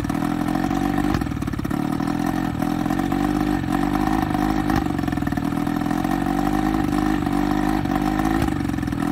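1994 Evinrude two-stroke outboard motor running steadily out of the water, cooled by a garden hose on a flushing muff, its revs wavering slightly.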